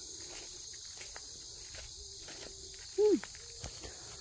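Steady high chirring of crickets and other insects, with a few light ticks and rustles underfoot. About three seconds in, a short, loud pitched sound drops sharply in pitch.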